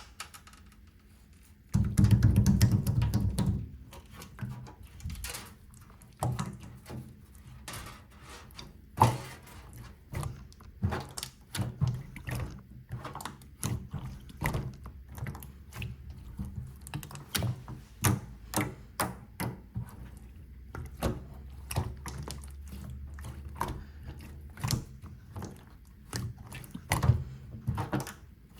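Slime being pressed and poked by hand, giving many irregular sticky clicks and pops. About two seconds in there is a loud, low handling noise lasting a second or so.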